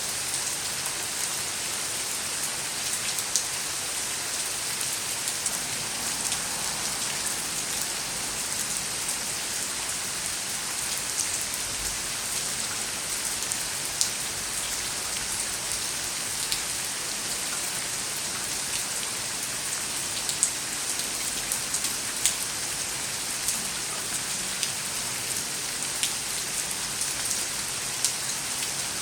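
Steady heavy rain falling on hard surfaces, an even hiss with scattered sharp drop impacts.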